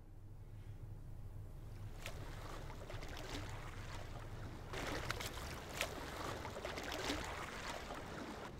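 Water lapping and splashing in irregular surges, loudest a little past halfway, over a steady low rumble.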